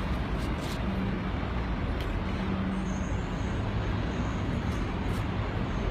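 Steady city street traffic noise, with the low hum of a vehicle engine running underneath.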